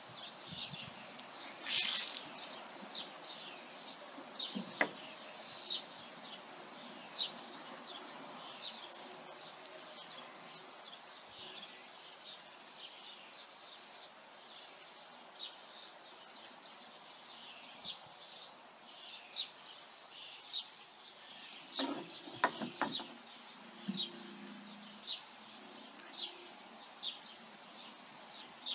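Small birds chirping over and over, short high falling chirps, about one every half second to a second. A brief rush of noise comes near the start, and a few knocks about two-thirds of the way through.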